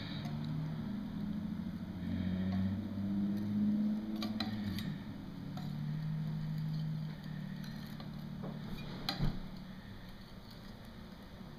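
A low engine hum, like a motor vehicle running nearby, shifting slowly in pitch and fading after about seven seconds, with a few light sharp clicks, the clearest about nine seconds in.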